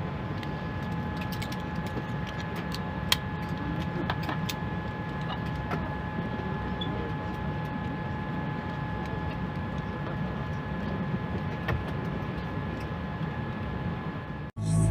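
Steady airliner cabin noise inside a Boeing 787: a low hum with a few high, steady whining tones on top. There are scattered faint clicks, one sharper about three seconds in.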